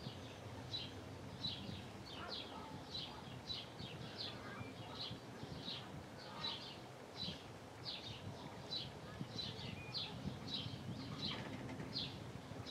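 A small songbird repeating short, high, slightly falling notes, about two a second, with a low steady rumble underneath.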